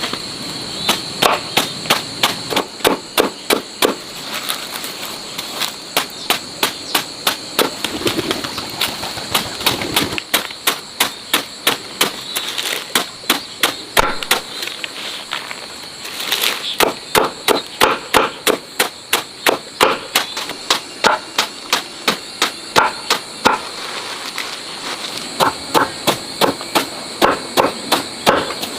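Repeated chopping strikes of a blade, about three a second, in runs broken by short pauses.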